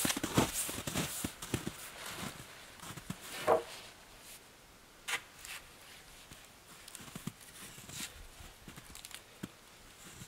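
Boots crunching on snow, then dead-wood poles knocking and scraping as they are handled, with scattered clicks and rustles.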